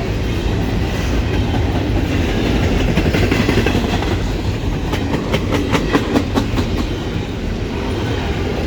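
Intermodal freight train cars rolling past close by, a steady low rumble of wheels on rail. About five seconds in comes a quick run of clickety-clack as the wheels cross rail joints.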